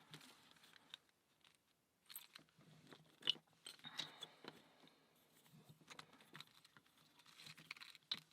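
Faint, scattered clicks and light scrapes of small wooden puzzle parts being handled and pressed into place, the sharpest click about three seconds in.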